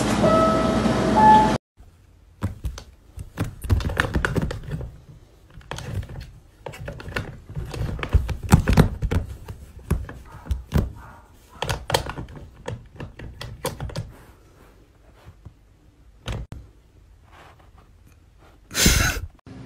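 Irregular light taps, clicks and knocks from a cotton swab poking and scraping in a narrow gap under a wooden board where a cat is hiding. A short, loud rush of noise comes just before the end.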